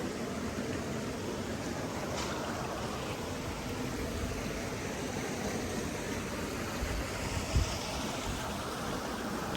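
Steady rushing noise of flowing water, with a brief low thump about seven and a half seconds in.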